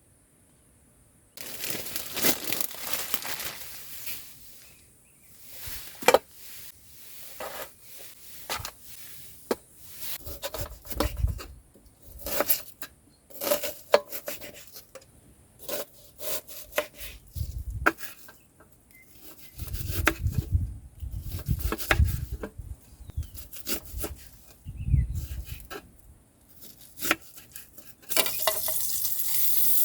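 Camp-cooking handling noises: rustling, rubbing and crinkling with scattered light clicks and knocks of utensils and cookware, and a few dull thumps. Near the end a frying pan starts sizzling steadily as food goes into hot oil.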